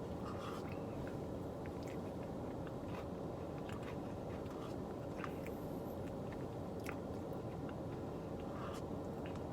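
Close-up chewing and eating of a soft-serve Blizzard with crunchy Oreo pieces, with scattered small clicks and crunches, over a steady low background hum.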